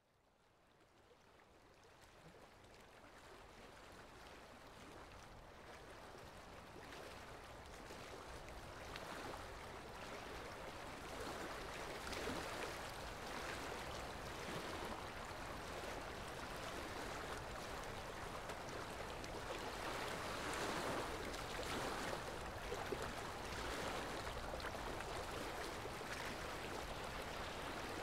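Steady rushing noise like running water, fading in from silence over the first ten seconds or so and then holding level with slow swells.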